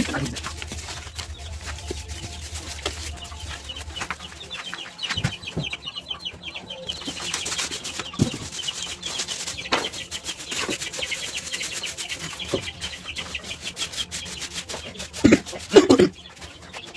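A flock of chickens and young chicks peeping and clucking without a break, with a couple of loud knocks near the end.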